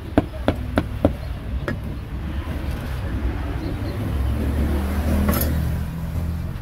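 A cleaver chopping grilled pork on a board, about three strokes a second, stopping about two seconds in. Then the low rumble of a passing motor vehicle builds, is loudest about five seconds in, and eases near the end.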